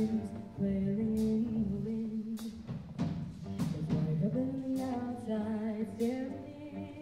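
Show choir singing held, sustained notes over a live band, with drum or cymbal hits about once a second.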